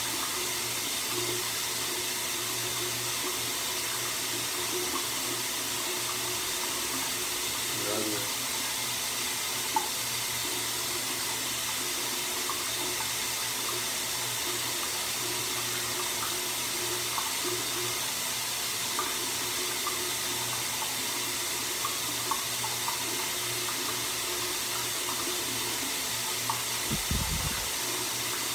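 Steady hiss of running water. A few faint ticks, and a short low thud near the end.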